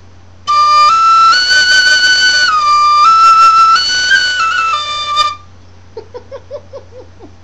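Tin whistle playing a slow hymn melody in a few held, clear notes, stepping up and down, for about five seconds before stopping abruptly. A short burst of laughter follows near the end.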